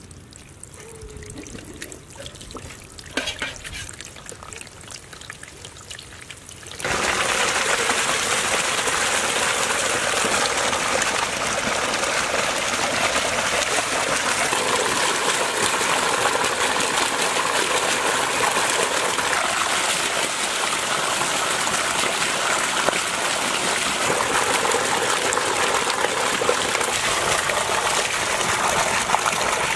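Water pouring and splashing quietly, then, from about seven seconds in, a strong steady rush of water gushing out of a large pipe outlet onto a heap of goat intestines and into a steel basin.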